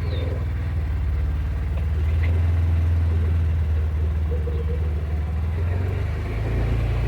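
Engine of a small farm vehicle running steadily as it drives along, a low even hum. The note shifts slightly near the end.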